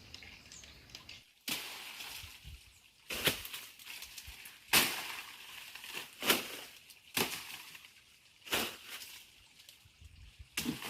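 A series of sharp knocks, about seven, coming irregularly every second or two.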